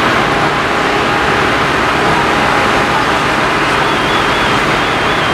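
Fire engine running steadily while pumping water to its hose lines, a loud, even engine noise with no letup.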